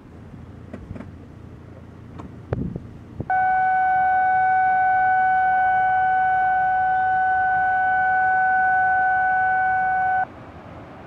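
A loud, steady horn-like tone at one fixed pitch starts suddenly about three seconds in, holds for about seven seconds and cuts off sharply. A few faint clicks come before it.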